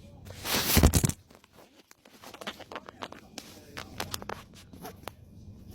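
A loud rustling scrape lasting about a second, followed by scattered small clicks and scrapes.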